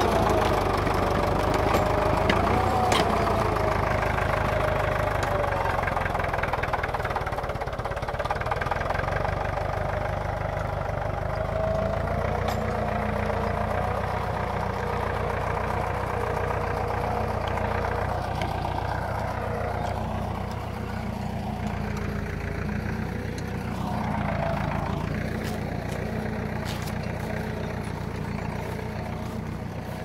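Tractor engine running steadily under load as it pulls a disc plough through the soil, its pitch wavering slightly and the sound slowly fading as the tractor moves away.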